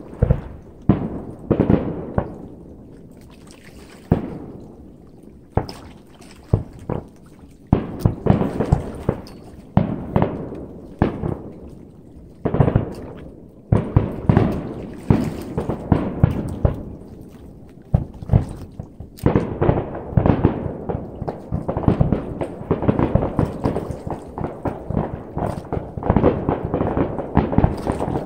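Fireworks display heard across a lake: a string of aerial shell bursts, each sharp boom trailing off in a rolling echo. The bursts are spaced out at first and come thick and fast in the second half.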